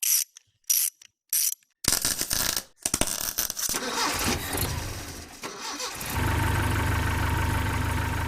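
A few short, clipped sound bits with silence between them, then irregular mechanical clatter, then about six seconds in a car engine starts and settles into a steady idle with a low hum.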